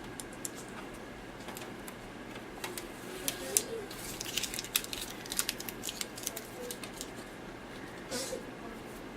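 Scattered light clicks and ticks of small hardware parts being handled, with a short scrape near the end.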